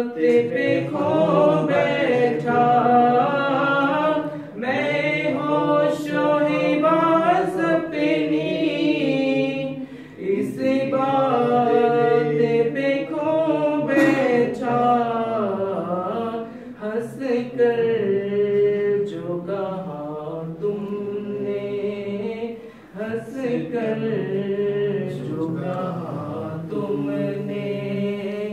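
A man's voice singing a naat, an Urdu devotional poem, unaccompanied, in long held, ornamented phrases with short breaks for breath.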